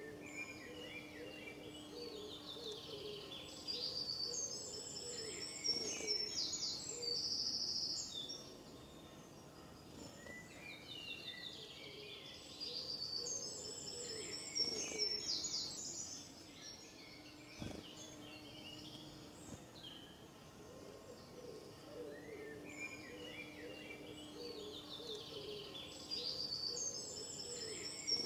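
Songbird singing: a long phrase of rapid chirps and trills, repeated three times about ten seconds apart, over a steady low background hum.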